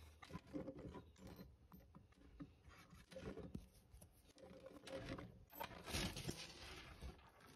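Faint handling noise from miniature glass soda bottles being picked up and set into a small plastic crate: light clicks, taps and scrapes in three short bunches.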